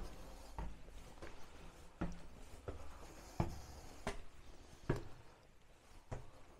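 Footsteps climbing a staircase, one step about every 0.7 seconds.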